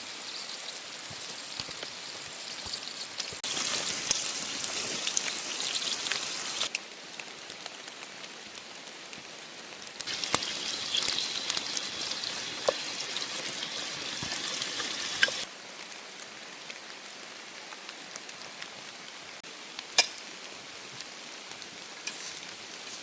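Steady rain pattering. Twice, a louder hissing sizzle of food frying in a pan cuts in for a few seconds and then stops abruptly, with a few sharp pops.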